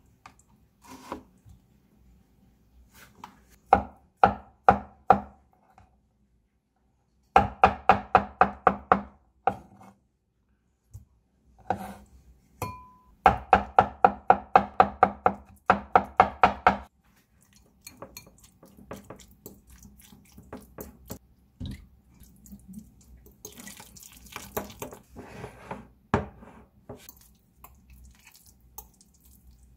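Cleaver chopping avocado on a wooden cutting board: three runs of quick, even knocks, about four a second, each with a slight ring. Softer scraping and tapping follow in the last third, with one sharp click.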